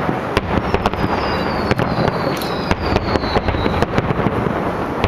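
Fireworks finale: a rapid, continuous barrage of bangs and crackles over a heavy rumble, with a high whistle sliding slowly down in pitch through the middle.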